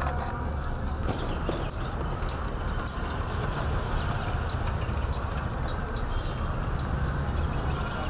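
Outdoor street ambience: a steady rumble of motor traffic, with a few faint, short, high chirps over it.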